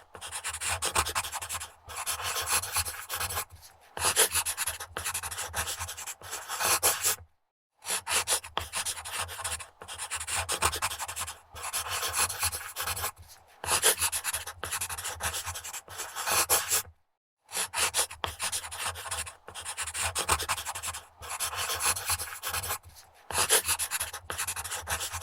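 Pencil writing quickly on paper on a wooden desk, scratchy scribbling strokes in runs of a second or two with short pauses between them.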